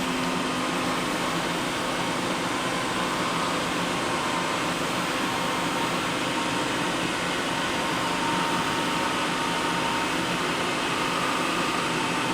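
Steady mechanical whir and hum, like cooling fans and pumps running, with a faint steady tone or two, from a powered-up CNC vertical machining center standing idle.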